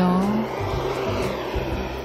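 Wood fire burning with a steady rushing noise under background music; a voice trails off in the first half second.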